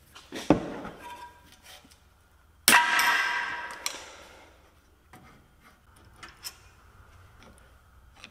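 Metal hand tools clanking: a sharp knock about half a second in, then a louder ringing metallic clang near three seconds in that fades over about a second, followed by a few light clicks.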